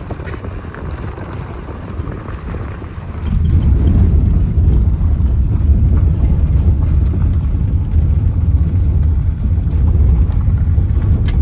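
A vehicle's low rumble on the move, growing louder about three seconds in, with scattered light knocks.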